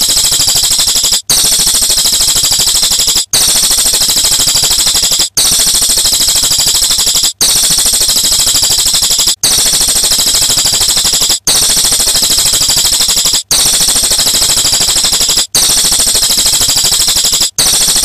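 Bird-training (masteran) audio: a loud, very rapid, high-pitched trill, repeated in stretches about two seconds long, each cut off by a brief break.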